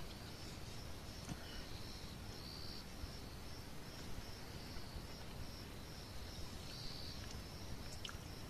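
Crickets chirping at night: a faint, high chirp repeating about twice a second, joined every few seconds by a longer buzzing trill.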